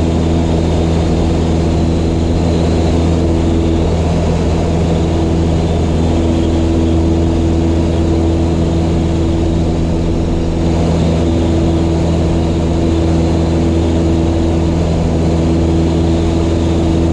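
Piper Cherokee's piston engine and propeller running steadily at pattern power, a loud even drone heard from inside the cockpit.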